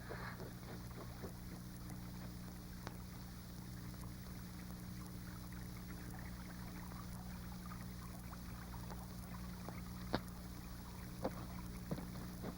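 Quiet soundtrack background: a steady low hum and hiss, with a few faint clicks.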